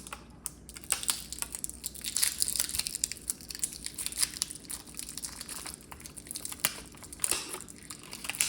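Plastic packaging crinkling and rustling in irregular crackles as it is handled and unwrapped.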